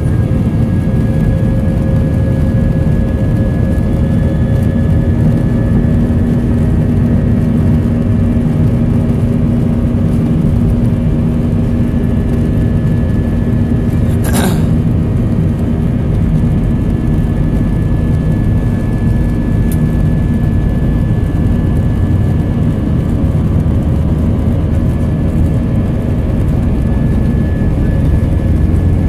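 Airbus A320 jet engines at takeoff thrust during the takeoff roll, heard from inside the cabin over the wing: loud and steady, with a steady hum running through it. A single brief knock about halfway through.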